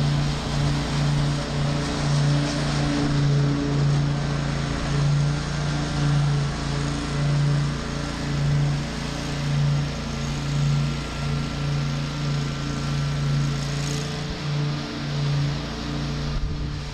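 A zero-turn riding mower's engine running steadily while it mows.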